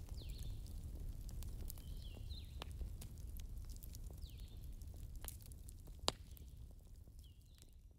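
Wood fire crackling: irregular sharp pops and snaps over a low rumble of burning, with one louder pop about six seconds in, fading out near the end.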